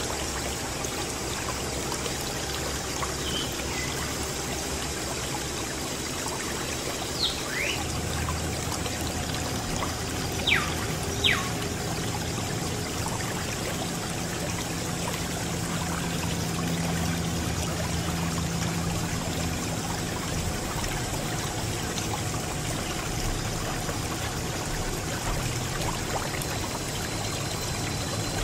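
Water from a small pump jetting out of a thin plastic tube and splashing onto a toy tractor, a steady pouring and trickling with a few brief high plinks. A low hum comes in about a third of the way through.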